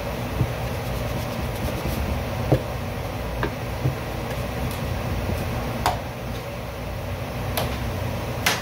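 Steady low mechanical hum in the room, with a few light knocks and clicks as a hand iron is set down and pressed over fabric on a tabletop.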